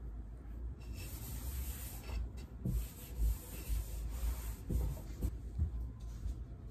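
A cleaning wipe rubbing back and forth over the top of a wooden dresser, making faint, irregular scuffing with small soft bumps.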